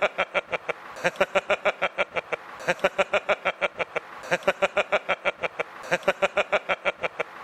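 A man laughing hard and without letup: rapid 'ha-ha-ha' pulses, about six a second, in runs of a second or two broken by short pauses.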